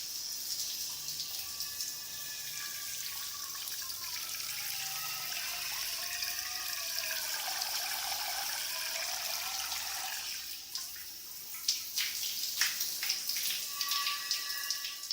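Shower head spraying water in a steady hiss, with a wavering hollow tone under the spray in the middle. Distinct splashes and drips stand out over the last few seconds.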